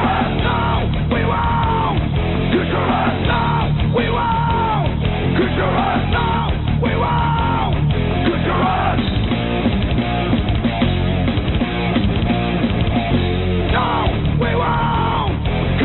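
Punk rock song with shouted vocals over electric guitars.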